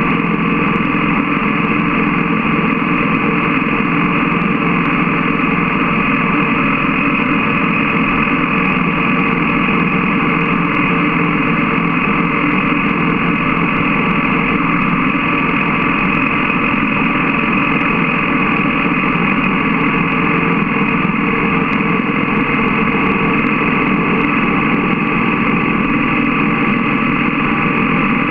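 BMW GS motorcycle's boxer-twin engine running steadily at cruising speed, mixed with wind and road noise.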